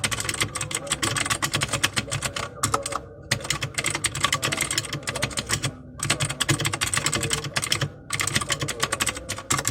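Continuous typing on a Royal Kludge RK61 mechanical keyboard with Huano Blue clicky switches: a rapid stream of sharp key clicks. There are short pauses about three, six and eight seconds in.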